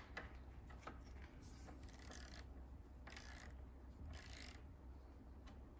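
Faint ratcheting of a torque wrench running in the Chrysler 727 transmission's internal first-and-reverse band adjusting screw, in a few short strokes: the band is being tightened toward 72 inch-pounds.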